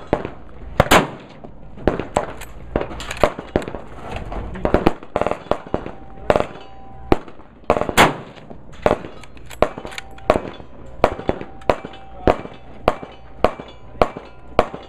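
Gunfire on a busy outdoor shooting range: a long, irregular string of sharp shots, roughly one to two a second, from several guns, with a few louder, closer rifle shots standing out, one about a second in and the loudest about eight seconds in.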